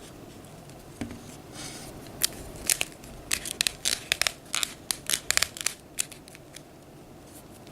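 Irregular sharp clicks and light rustling of a plastic toy figure being handled, its jointed arms moved about.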